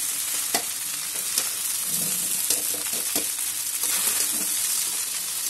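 Fried rice with egg sizzling in a metal kadai as it is stirred and turned with a spatula, with a steady hiss and a few sharp clacks and scrapes of the spatula against the pan.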